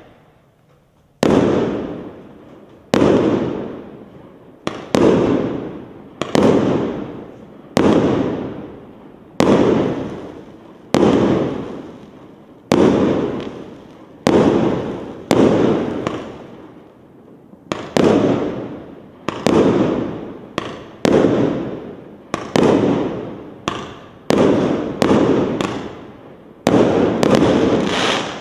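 A Piroff 'Romantika' 19-shot, 1.2-inch consumer fireworks cake firing: a regular series of sharp bangs about one and a half seconds apart, each followed by a fading tail. The bangs come quicker in the second half, and the last, longest bang falls near the end.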